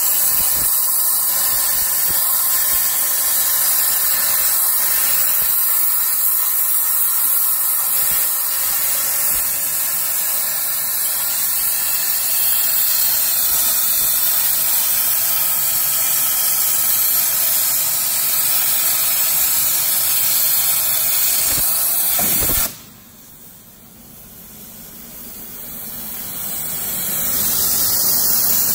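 160 A CNC plasma cutting torch cutting steel plate: a loud, steady hiss of the plasma arc and its air jet. About four-fifths of the way through the hiss drops away suddenly, then builds gradually back to full level near the end.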